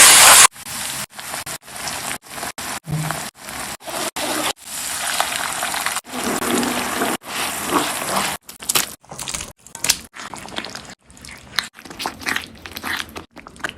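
Paneer tikka masala cooking in a pan in a string of short, abruptly cut clips: a steady hiss of sizzling, with a few scrapes and clinks.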